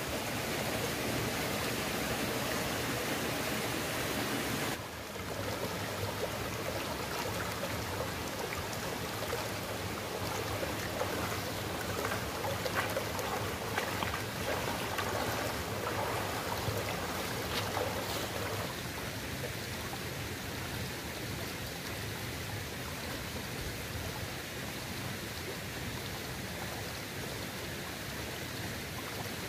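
Shallow rocky stream running steadily, with splashes of bare feet wading through the water in the middle stretch.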